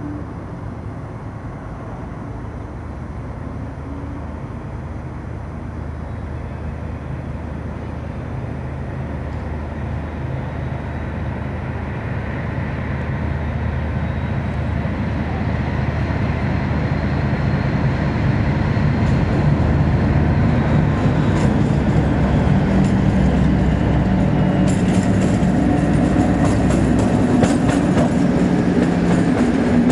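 Class 56 diesel locomotive 56312, with its Ruston-Paxman 16-cylinder engine, approaching at the head of a passenger train. Its engine grows steadily louder, then in the last few seconds the train passes close with the wheels clicking over the rail joints.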